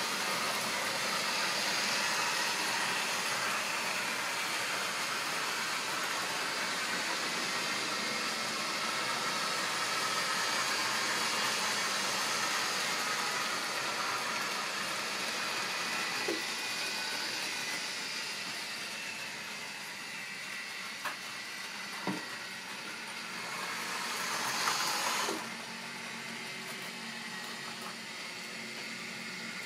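Model railway train running on the layout: a steady electric motor hum and wheels rolling on track as a rake of tank wagons passes. There are a few sharp clicks about halfway through, and a swell in the sound that cuts off suddenly near the end.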